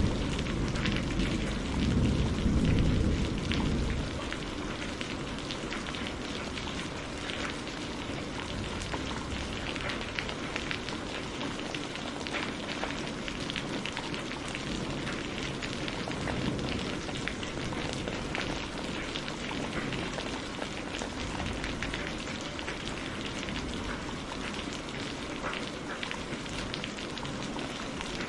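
Steady rain falling, a dense even hiss of drops, with the low rumble of thunder dying away over the first few seconds.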